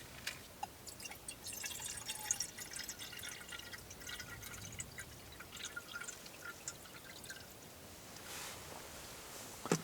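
Water pouring and dripping: a dense run of small drips and splashes about a second in that thins out after about seven seconds, with a knock near the end.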